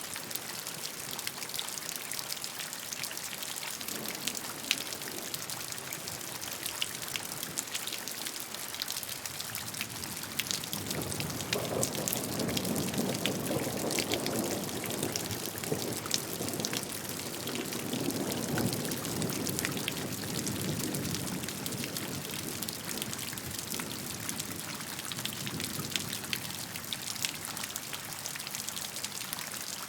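Steady rainfall: a constant hiss of rain with many small drops pattering and ticking on a surface, swelling deeper and fuller from about eleven to twenty seconds in.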